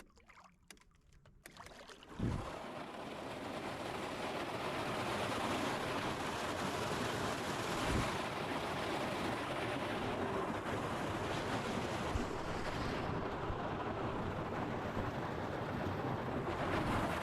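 Wind blowing hard across the microphone as a steady rush of noise, starting abruptly about two seconds in.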